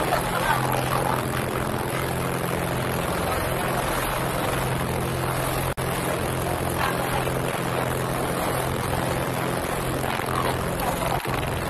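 Small ferry boat's engine running steadily, heard from inside the cabin as a constant low hum under a wash of water and wind noise. The sound drops out for an instant about halfway through.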